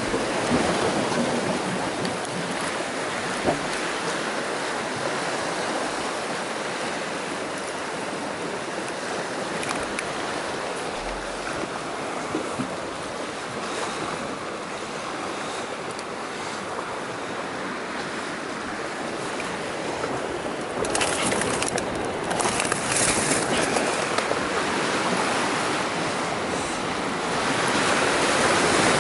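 Sea surf breaking and washing around a rocky shore, a steady rush of water. A few short crackles come through about three-quarters of the way in.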